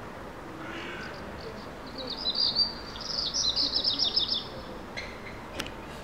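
Unidentified songbird singing two quick runs of rapid, high-pitched notes, the second run longer, beginning about two seconds in.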